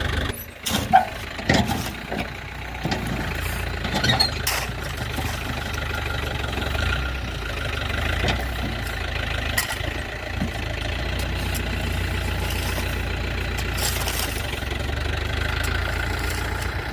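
Tractor engine running steadily while its bucket digs debris out of a ditch, with several knocks and clanks in the first few seconds.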